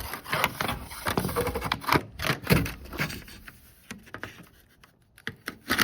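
Chrome upper door trim strip scraping and tapping against a 1973–79 Ford pickup's door as it is held up and its holes lined up: a busy run of scrapes and clicks for the first few seconds, then a few sparser clicks, with a sharp click near the end.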